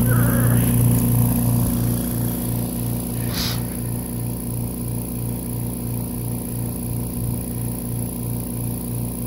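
Electric pond aeration compressors running, a steady low hum that pulses evenly at about four beats a second. A short burst of noise about three and a half seconds in.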